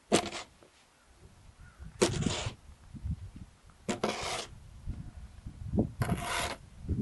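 Plastic snow shovel scraping across ice and scooping snow, four sharp scrapes about two seconds apart, each lasting about half a second.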